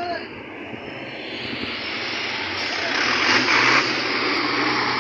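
A truck passing close by on the road: steady engine and tyre noise that swells to its loudest about three and a half seconds in.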